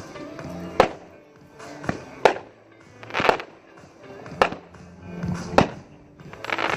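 Consumer firework cake firing: a string of sharp bangs about a second apart, some as longer hissing bursts, over background music.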